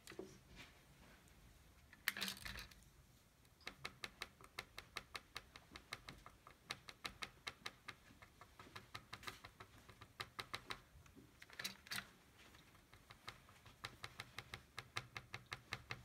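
Q-tip dabbing paint dots onto a canvas: runs of quick light taps, several a second, with short pauses between runs. A brief rustle about two seconds in and another near twelve seconds.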